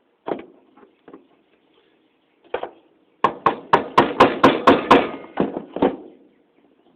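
Hammer strikes on a brass bathroom-faucet body, knocking at a stuck valve to drive it out: a few single blows, then a quick run of about a dozen strikes at roughly four a second.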